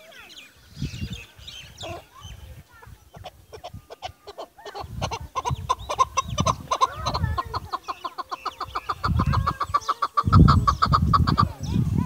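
Chukar partridge calling: a run of short clucking notes that starts about five seconds in and speeds up into a fast, regular series of calls that stops near the end.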